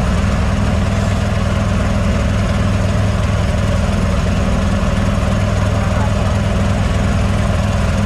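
An engine running steadily at a constant speed, a low hum with a hiss over it that does not change.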